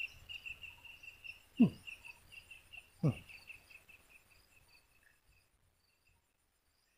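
A cricket chirping in a steady, fast-pulsing high trill that fades out after about four seconds. Two short, loud sounds falling in pitch come about a second and a half apart, and the last couple of seconds are near silent.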